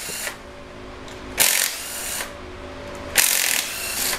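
Handheld power tool spinning camshaft bearing cap bolts loose, in two bursts of just under a second each, about a second and a half apart.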